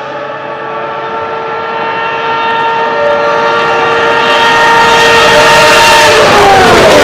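1995 Ferrari 412 T2 Formula 1 car's V12 engine at high revs, a steady high-pitched note growing louder as it approaches. Near the end the pitch drops as it comes past.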